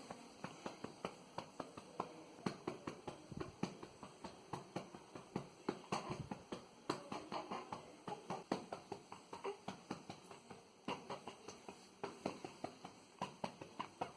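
A hand patting a baby's back to burp him: soft, regular pats at about three a second, with a short break partway through.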